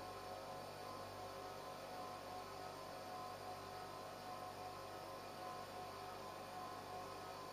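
Airnergy+ breathing-air unit running: a faint, steady hum with several held tones over a light hiss.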